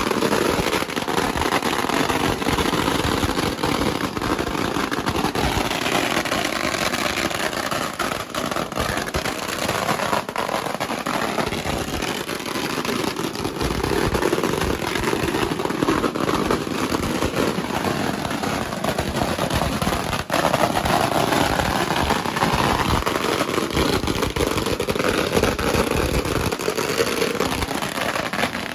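A long Pagara string of firecrackers going off in continuous rapid-fire crackling, hundreds of small bangs running together.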